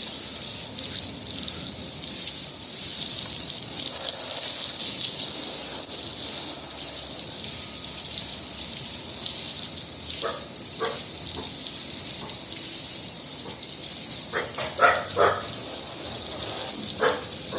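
Steady rush of running or falling water, a continuous high hiss. A dog barks a few times partway through and near the end.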